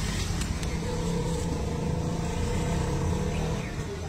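A vehicle engine running steadily, a low hum.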